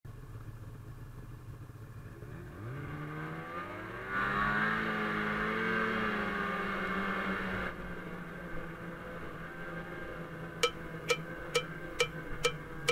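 Snowmobile engine idling, then revving up about three seconds in and holding steady high revs as the sled pulls away, easing off about eight seconds in. Near the end a music track starts with a regular clicking, woodblock-like beat, about two clicks a second.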